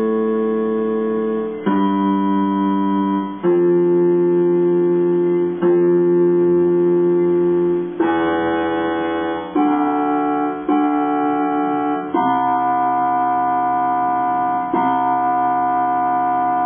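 A musical instrument, likely plucked strings, playing a slow run of single sustained notes, with a new note striking about every one to two and a half seconds and each one ringing on until the next.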